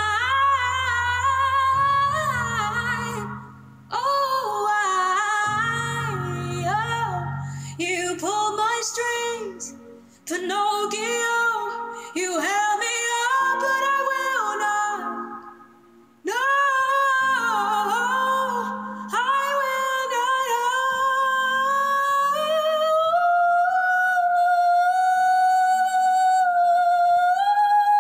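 A woman's voice singing wordless runs that glide up and down, broken by short breaths, over low sustained backing tones in the first part. It settles into one long held note for the last several seconds.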